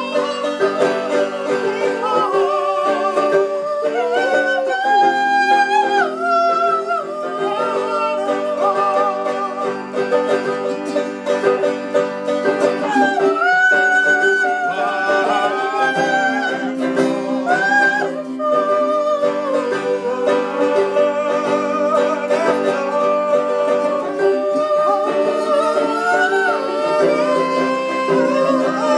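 Music: plucked acoustic string instruments playing with a sung melody over them.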